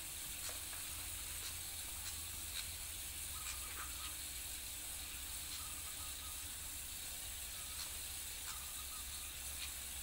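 Steady hiss of a thin sheet of water trickling over a stone slab, with a few faint light splashes and ticks as a pied fantail bathes in it.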